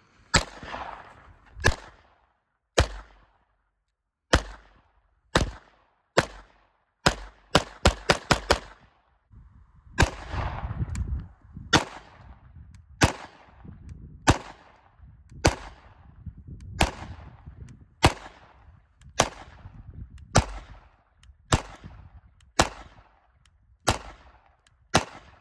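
Taurus TX22 Compact .22 LR pistol firing about two dozen sharp cracks, with a quick string of five or six shots near eight seconds in and otherwise a steady pace of about one shot a second.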